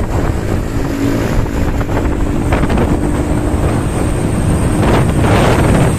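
Wind buffeting the microphone over the steady noise of a truck and traffic on the move, recorded from a vehicle driving close beside the truck.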